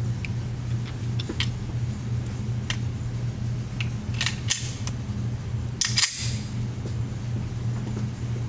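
Sharp metallic clicks and clacks from a Ruger SR9c 9 mm pistol's action being handled. The loudest comes about six seconds in, with a brief ring. A steady low hum runs underneath.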